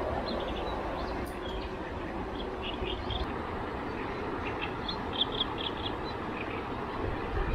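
River ambience: a steady rush of flowing water with a low rumble underneath. Small birds chirp in short clusters of high notes through it, most often from about two and a half seconds in.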